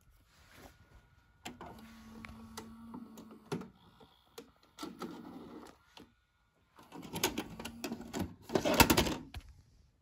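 Philips VR960B Super VHS VCR's tape transport mechanism working: a series of clicks and clunks with short stretches of steady motor whir, loudest near the end.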